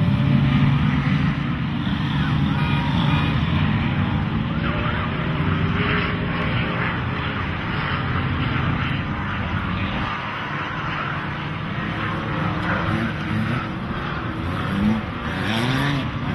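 Off-road race vehicle's engine running hard at speed. Its low note drops off about ten seconds in, and short revs rise and fall near the end.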